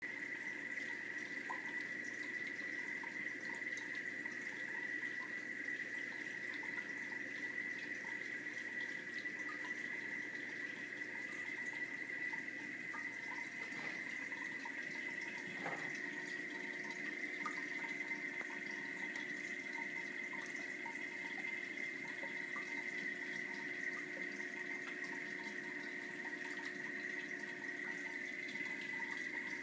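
Steady rush and trickle of moving water from a reef aquarium's pumps and circulation, with a steady high tone over it and small scattered drips.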